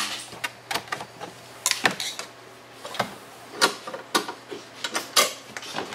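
Irregular sharp clicks and knocks as a Ski-Doo snowmobile's plastic side panel is opened and handled.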